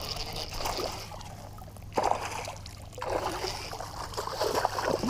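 Water splashing and trickling around a kayak, with a sharp knock about two seconds in.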